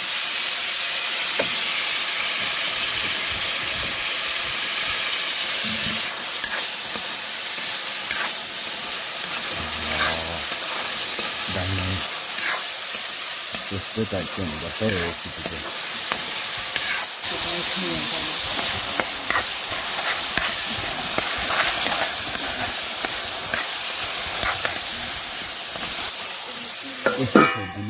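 Chicken pieces sizzling as they fry in a steel wok. A metal spoon scrapes and clinks against the pan as they are stirred.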